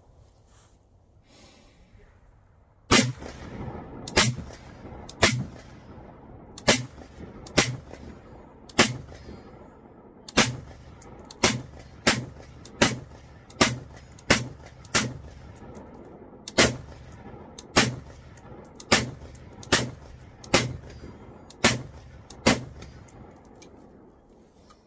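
Some twenty gunshots fired one at a time at an uneven pace, about one a second, starting about three seconds in, each shot with a short echoing tail.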